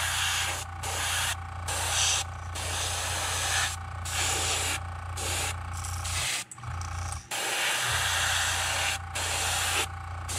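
Airbrush spraying paint in a run of short hissing bursts, the trigger let off briefly between them, over a steady low hum.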